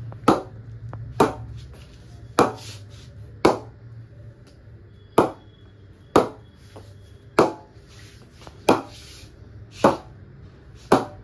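A cricket ball bounced repeatedly on the face of an SS Sky Stunner cricket bat, the "ping" test of how the bat's blade responds: ten sharp knocks, about one a second, each with a brief ring.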